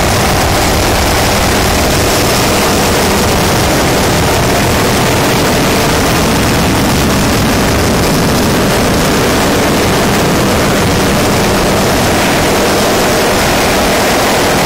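Helicopter cabin noise: the engine and rotor run in a loud, steady drone with no change.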